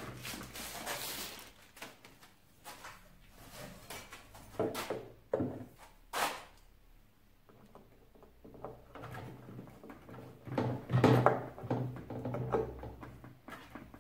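Assembly handling noises: plastic wrapping rustling and a scattering of sharp knocks and clicks as the lawnmower's handlebar and screws are fitted, with a denser stretch of rustling and knocking near the end.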